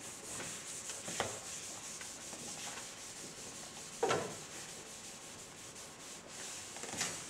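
Chalk scraping and rubbing on a chalkboard, a steady scratchy hiss, with a sharp knock about four seconds in and a lighter one about a second in.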